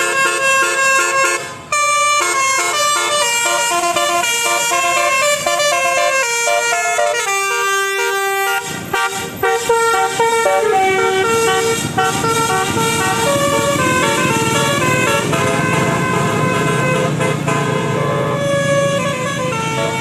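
Telolet bus horn, an Indonesian multi-tone musical air horn, playing a tune of stepping, held notes with short breaks. An engine rumble comes in under the horn in the second half.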